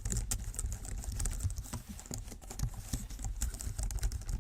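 Typing on a Logitech MX Keys wireless keyboard: a fast, continuous run of key clicks from its low-profile scissor-switch keys.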